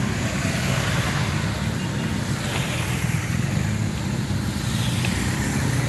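Motorcycles riding past one after another, their engines running with a steady low drone.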